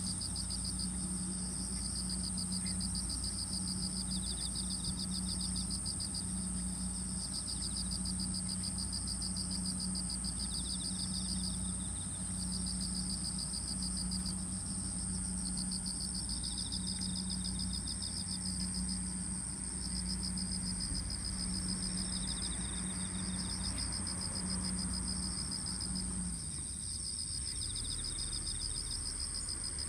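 Chorus of summer insects: one steady, very high trill with a second, lower trill pulsing in bursts of a second or two beneath it. A low pulsing hum underneath stops shortly before the end.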